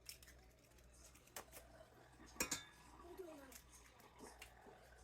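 Eggs being cracked against the edge of a mixing bowl: a few faint sharp taps and clicks, the loudest a quick double tap about two and a half seconds in.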